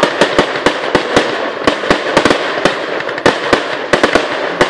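Aerial fireworks display: rapid, irregular bangs of shells bursting, about four a second, over a continuous crackle.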